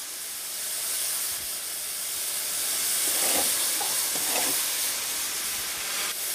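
Steady hiss of steam escaping from a steam locomotive standing at rest.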